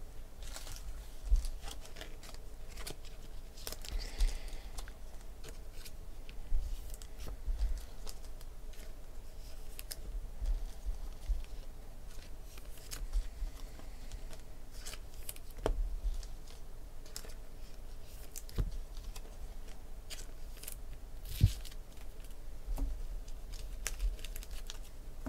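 Trading cards being handled and sorted by hand: scattered soft flicks, slides and clicks of card stock, with a couple of sharper taps partway through.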